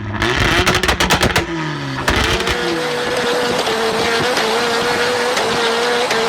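Car engine revving down with a quick run of sharp clicks in the first couple of seconds, then settling into a steady drone with a wavering hum.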